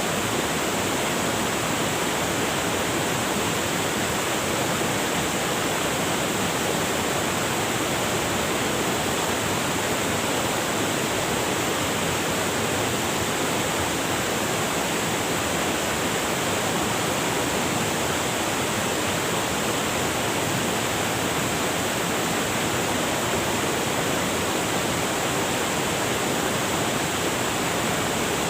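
River water rushing over rocks, a steady, even rush with no breaks.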